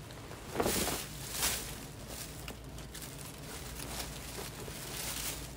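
Rustling of clothes and bag being handled while searching through a shopping bag, with two louder rustles about half a second and a second and a half in, then fainter handling.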